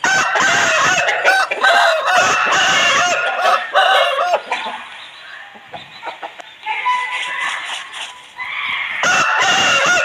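Aseel rooster crowing: one long crow lasting several seconds, then another crow starting near the end.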